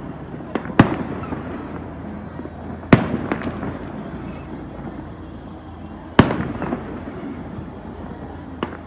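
Aerial firework shells bursting over a city: three loud bangs, about a second, three and six seconds in, each trailing off in a decaying rumble, with a few smaller pops between.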